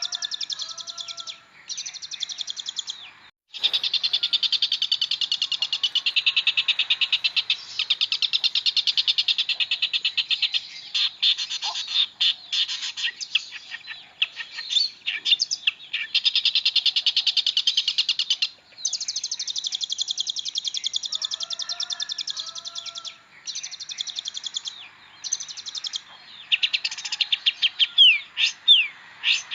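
Long-tailed shrike singing a long, fast chattering song of rapidly repeated high notes, in runs of several seconds broken by brief pauses. The song is mixed with lower, warbled mimicked phrases.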